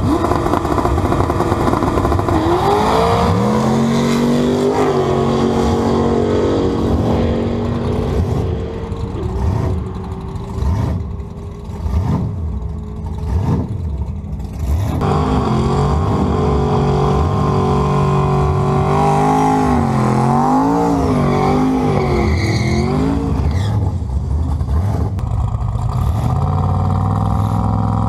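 Drag cars' engines at the start line: one revs and pulls away, its pitch rising and then holding. After a quieter stretch, another engine runs loud with throttle blips rising and falling, then climbs in pitch near the end as the car launches.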